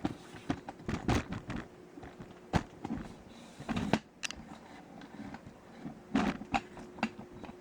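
Clicks and knocks from a camera tripod being handled and lowered: a string of separate sharp taps a second or so apart.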